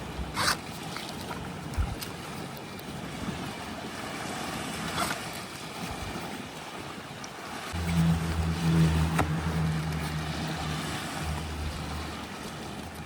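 Seaside wind and surf noise with a few light knocks. From about eight seconds in, a steady low motor hum runs for about four seconds and then fades.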